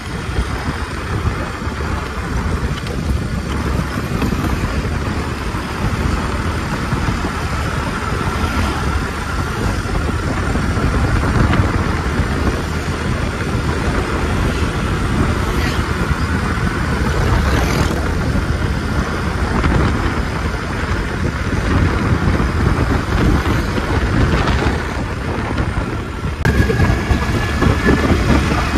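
Engine and road noise of a vehicle travelling along a road: a steady low rumble with a faint whine that climbs slowly. The sound shifts suddenly about two seconds before the end, and the whine is higher after that.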